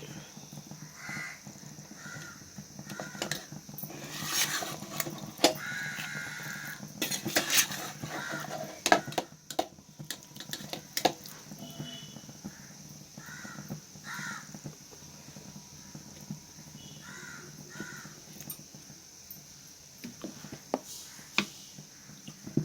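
Crows cawing repeatedly over a steady sizzle of fish frying in hot coconut oil, with sharp clinks and knocks of utensils against the pan.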